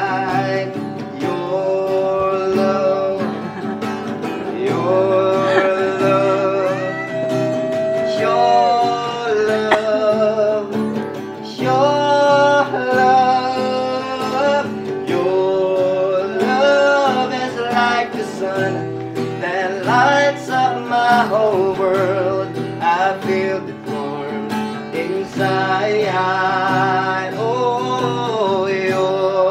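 A man singing a slow love ballad, accompanied by his own acoustic guitar, with a wavering vibrato in the voice.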